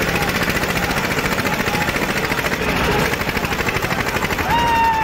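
Eicher 242 diesel tractor engine working hard under load, pulling against another tractor in a tug-of-war, with a rapid, even beat. A short high shout cuts in near the end.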